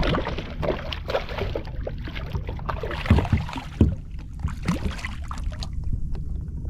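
Water splashing and sloshing around a kayak, with irregular small knocks and two louder thumps about three and four seconds in, as a caught redfish is handled aboard.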